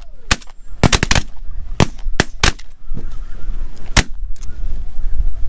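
Volley of shotgun blasts from several hunters firing at snow geese overhead: about ten shots, bunched in the first two and a half seconds with a rapid run of four around one second in, then a single loud shot about four seconds in.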